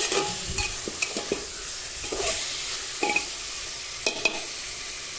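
Chicken pieces and spices sizzling in hot oil in an open pressure cooker, with a metal spatula stirring and scraping against the pot in short, irregular knocks.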